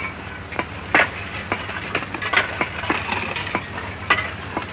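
Scattered sharp knocks and clinks, irregularly spaced a second or less apart, over the steady low hum of an old film soundtrack.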